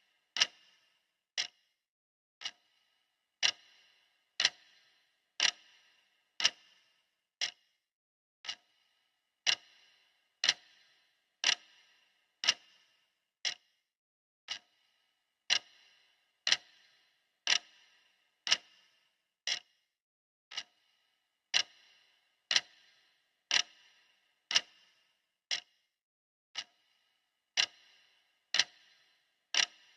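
Clock ticking steadily, about one tick a second, each tick a sharp click with a brief ring.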